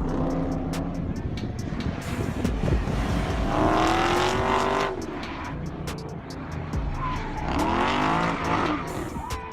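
Background hip-hop music with a steady beat. Over it, a car sound rises and falls twice, about three and a half seconds in and again near the end.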